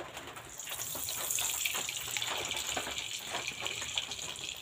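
Mustard oil poured into a hot karai, hissing and sizzling as it heats. The hiss starts about half a second in, with small crackles through it.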